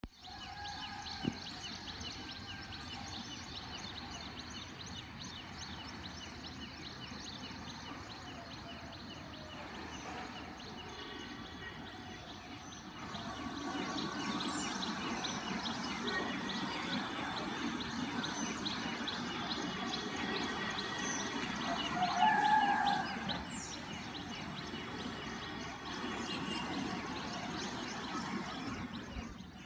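Many small birds chirping and twittering in rapid repeated notes over a steady background rumble that grows louder about halfway through. A single sharp click comes near the start, and a brief louder sound stands out about three-quarters of the way through.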